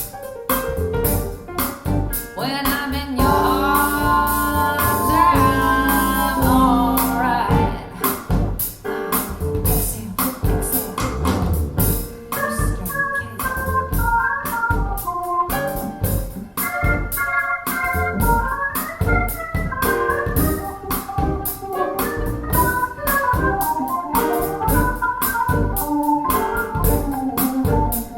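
Music with a steady beat, held keyboard chords and a melody, played back through a pair of Bowers & Wilkins 607 two-way bookshelf speakers.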